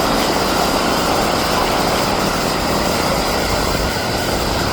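Steady drone of the Canadair CL-415 amphibious water bomber's twin turboprop engines, an even rushing noise with a faint high whine held throughout.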